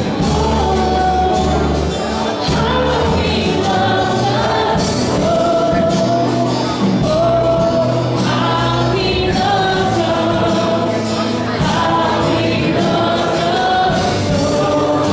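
Congregational worship song: a worship team's singers, choir-like, over a live band.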